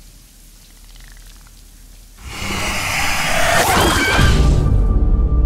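Horror-trailer sound design: a faint low drone, then a loud rushing whoosh swells up about two seconds in, a brief wavering shriek cuts through it, and a deep boom rumbles underneath.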